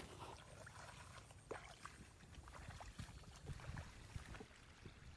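Faint low wind rumble on the microphone with a few light rustles and ticks from rice stalks brushing past.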